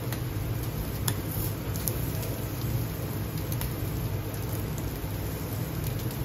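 Chicken yakitori skewers sizzling on a KOSEI KY-85KL professional gas grill, over a steady low rush from the grill, with scattered sharp crackles and pops.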